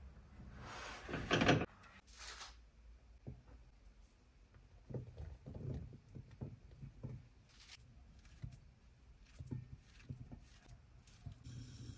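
A spatula scrapes briefly under a pancake in a non-stick frying pan about a second in, the loudest sound. Then come soft scattered taps and knocks as blueberries are tipped from a plastic colander onto a ceramic plate, with light handling sounds near the end.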